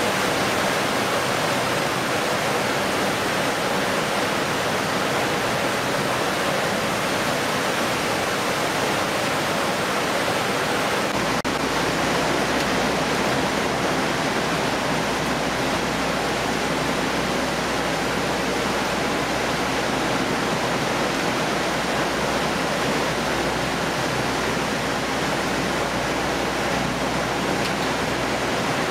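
Steady rushing noise of water sprays and running machinery on a fish processing line. About eleven seconds in, a low steady hum joins it.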